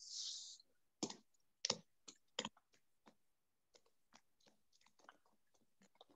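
A short hiss, then a string of irregular clicks and taps: the first three, about a second apart, are the loudest, and fainter, quicker ones follow.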